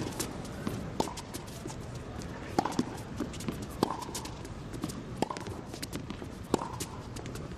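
Tennis rally: a ball hit back and forth with rackets, a sharp pop from the strings about every second and a half, over a low steady arena hum.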